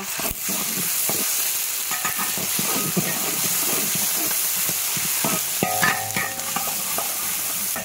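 Ciba chili paste, ginger and garlic sizzling steadily in hot oil in a large iron wok, stirred and scraped around with a metal spatula.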